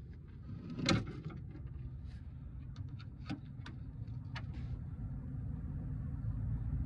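Scattered light clicks and knocks from tools and parts being handled during an alternator removal, one a little louder about a second in, over a steady low rumble.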